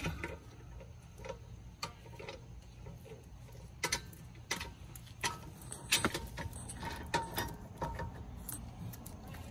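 Four-way lug wrench clinking on a car wheel's lug nuts as they are tightened: scattered sharp metal clicks at irregular intervals.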